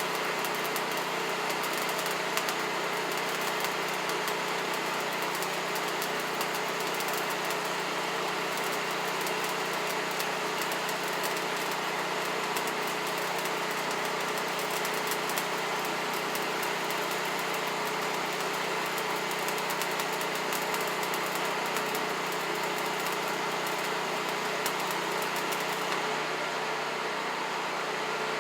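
A motor or engine running steadily, with an even hum that holds unchanged for a long stretch.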